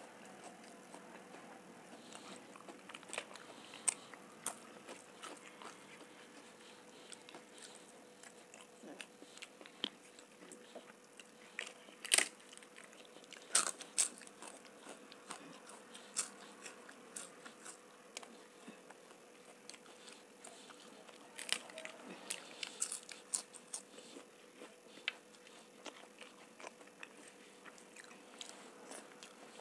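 Close-miked eating: crisp papad crunched in sharp bites, loudest about twelve and fourteen seconds in, with another run of crunches around twenty-two seconds in, between softer chewing and mouth sounds of rice and dal.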